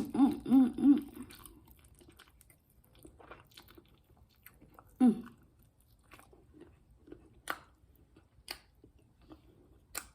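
A person chewing and biting food close to the microphone, with wet mouth sounds and a few crisp crunches later on. A short run of four hummed or laughing voice sounds opens it, and one more comes about five seconds in.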